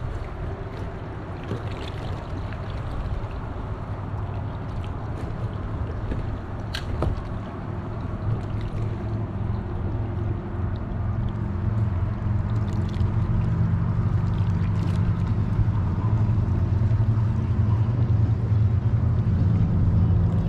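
A low, steady engine drone that grows louder from about halfway through, over faint water noise around the kayak. There is a single sharp click about seven seconds in.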